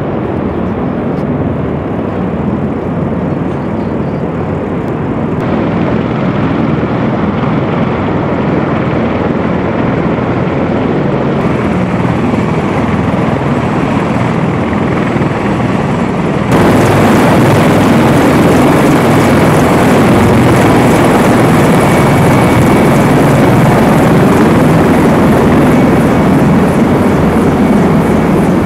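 Loud, steady aircraft engine noise that grows louder and brighter in steps at about 5, 11 and 16 seconds in. A faint high whine runs through the latter part.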